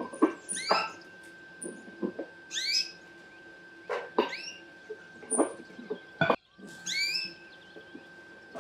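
Knife cutting and splitting pomegranate peel, giving sharp crisp cracks and snaps, mixed with four short rising squeaks and a few thin high chirps.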